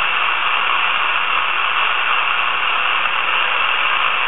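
Steady hiss of AM receiver static from an RTL2832/E4000 USB TV dongle running SDR# on the aviation band, with no transmission on the channel between pilot and controller calls.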